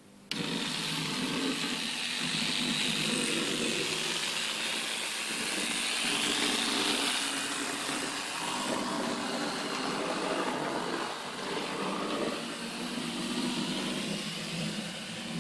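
Computer-generated train sound effect played back through the model railway's baseplate: a steady, dense running-train noise that starts abruptly about a third of a second in.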